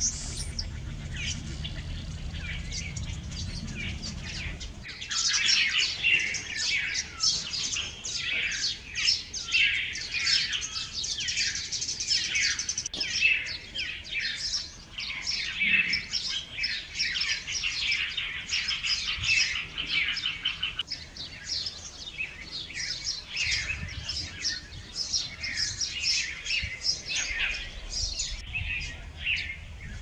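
Many small birds chirping and chattering in rapid, overlapping calls, growing dense and busy about five seconds in. A low background rumble runs under the first few seconds.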